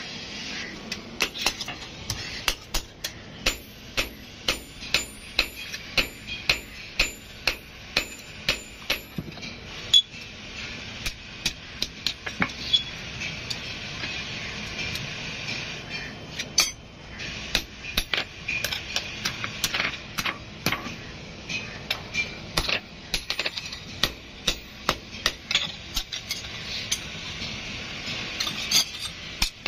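Blacksmith's hand hammer striking a hot sickle blade on a steel anvil block while forging it. Runs of sharp metallic strikes, about two or three a second, broken by short pauses.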